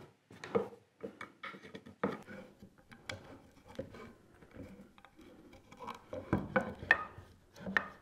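Oak boards being dry-fitted together with flat wooden biscuits on a wooden workbench: irregular light wooden knocks and clicks with some rubbing as the boards are laid and pushed together.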